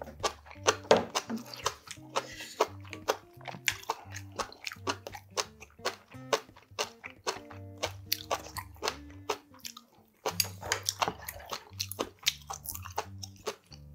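Close-miked chewing and crunching of braised monkfish with bean sprouts, many short sharp crunches in quick succession, over background music. The chewing stops briefly about ten seconds in.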